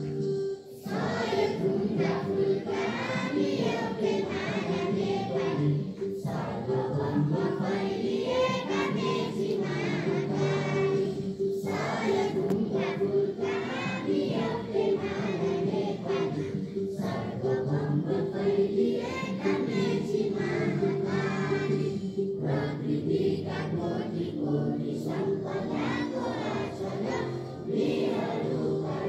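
Music with a group of voices singing together over steady held tones, with short breaks between phrases.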